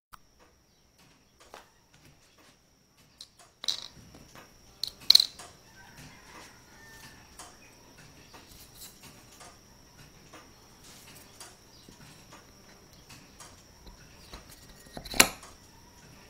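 Light taps and clicks of thin wooden gear cutouts being handled and fitted onto nail pivots on a pine board, with a few sharper knocks about four and five seconds in and the loudest near the end.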